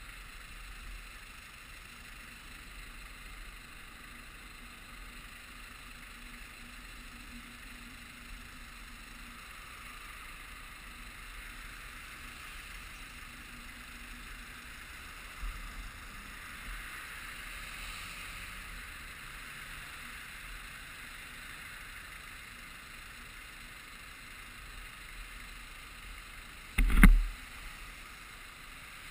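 Steady street traffic noise with a low rumble, broken by one short, loud knock about two seconds before the end.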